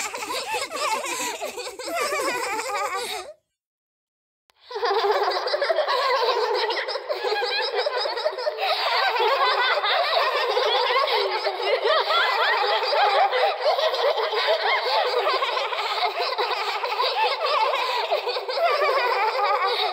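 Many overlapping childlike giggles and laughs, layered into a dense creepy horror sound effect. It sounds thin, with the bass and the top cut away. It starts after a short silence about four seconds in, and before the silence there is a stretch of fuller-range voices.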